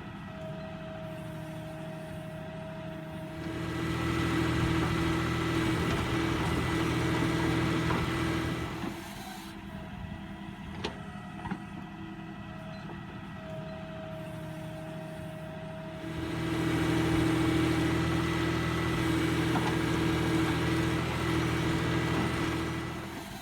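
Tractor-mounted backhoe loader's diesel engine running steadily, its note rising and getting louder twice for about five seconds each, as under load while the backhoe works, then settling back.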